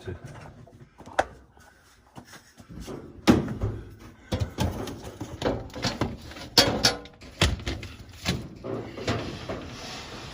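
Clothes dryer being pushed back against the laundry-room wall: a series of irregular knocks and clunks from the machine and its metal cabinet, with a steady hiss near the end.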